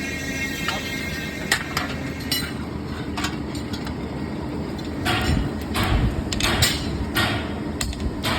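Metal strip being hammered into shape: separate sharp strikes in the first half, then a quicker run of heavier blows about twice a second over a steady low rumble.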